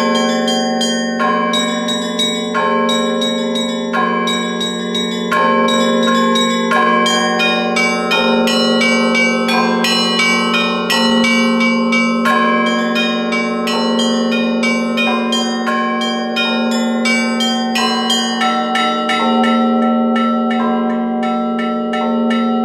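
Russian Orthodox church bells ringing in a continuous peal: the deep ring of larger bells holds underneath while smaller, higher bells are struck in quick, rhythmic patterns. The strikes come faster near the end.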